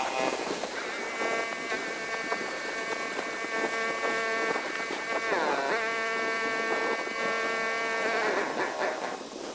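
Pressure washer running with a steady high whine. The pitch dips briefly and recovers about halfway through, then dips again and dies away near the end.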